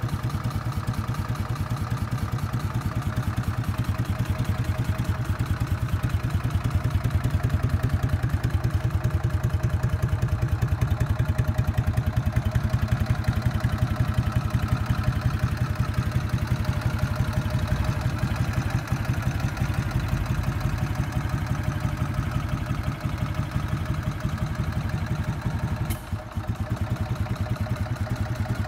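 BMW R50's air-cooled flat-twin engine idling steadily with an even, rapid exhaust beat.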